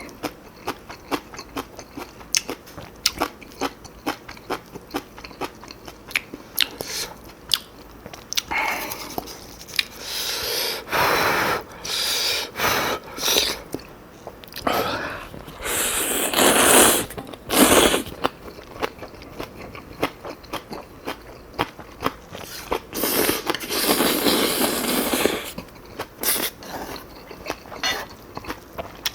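Close-miked eating of Chapagetti black bean noodles and kimchi: constant rapid chewing clicks and crunches, broken by three long noisy slurps of noodles, one a third of the way in, one just past the middle and one near the end.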